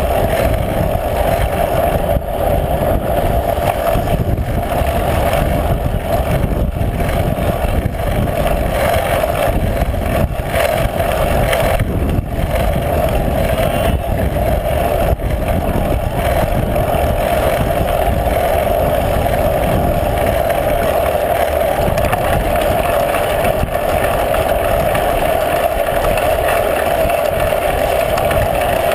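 Steady wind rush and road noise from a moving bicycle, heard on a camera mounted on the bike, with a constant mid-pitched hum.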